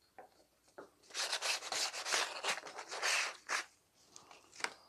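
Sandpaper rubbed lightly along the edges of a thin strip of picture-mounting card in a run of quick scratchy strokes, taking off loose bits of card raised by engraving. A sharp light tap comes near the end.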